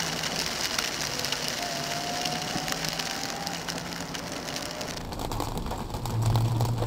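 Heavy rain and hail pelting a car's windshield and roof, heard from inside the cabin as a dense rush full of sharp ticks. About five seconds in, the sound changes abruptly to a duller, lower in-car rumble.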